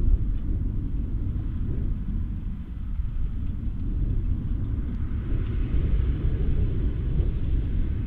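John Deere 6215R and 9560R tractors' diesel engines working under ploughing load, a steady low rumble that grows a little brighter in the second half as the nearer tractor draws level.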